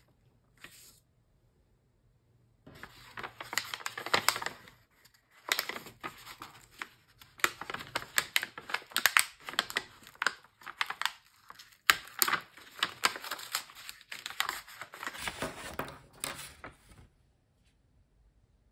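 Kraft paper envelope rustling and crinkling as it is handled and opened by hand, with many small crackles and clicks. The rustling starts a few seconds in and stops shortly before the end.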